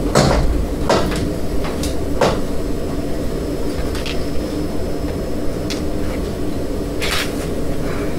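A steady low rumble with a faint hum in it, and sharp knocks and clicks every second or two.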